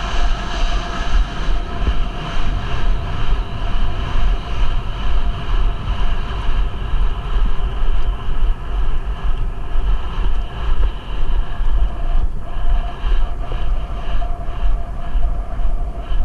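Wind rushing over a rider-mounted camera's microphone while a horse gallops on a dirt track, with the horse's stride giving a steady, rhythmic pulse of about two beats a second.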